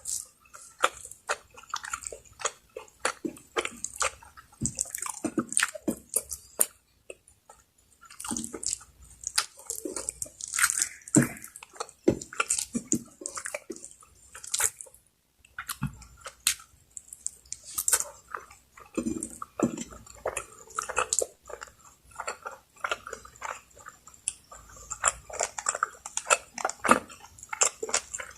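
Close-miked chewing and mouth sounds of a person eating spicy Bicol Express, a pork stew in coconut milk with chilies: wet, irregular clicks and smacks with a couple of short pauses.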